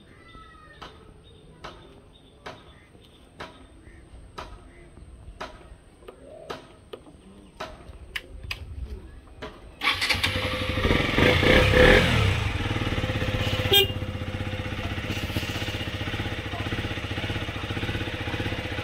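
KTM Duke single-cylinder motorcycle engine starting and revving briefly about ten seconds in, then settling into a steady idle, with a single sharp click a few seconds later. Before it, faint sharp clicks come roughly once a second.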